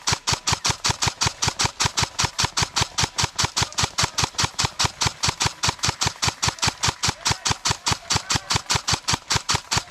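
A rapid, even mechanical knocking, about five to six sharp knocks a second, held steady throughout.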